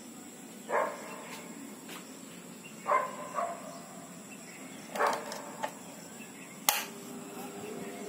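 A dog barks in the background about every two seconds, single short barks. Near the end a sharp click, the wall switch being flipped, and the Lazer table fan's motor starts up with a low hum and a rising whine as the blade gathers speed.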